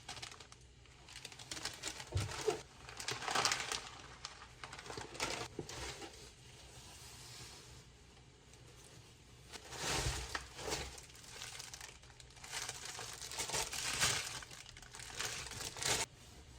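Crinkling and rustling of packaging being handled, coming in irregular bursts with pauses between.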